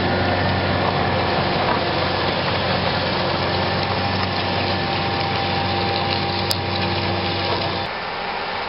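Tractor's diesel engine running steadily under load as it pulls a reversible plough past close by. Near the end the sound drops suddenly to a fainter, more distant engine.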